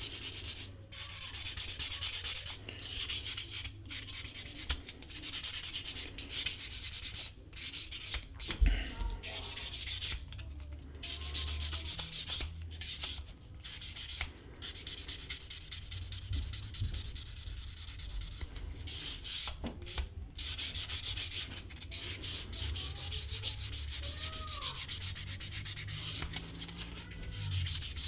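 Sandpaper rubbed back and forth along the painted edge of a leather strap, sanding the dried acrylic edge paint smooth: a scratchy hiss in runs of quick strokes broken by short pauses.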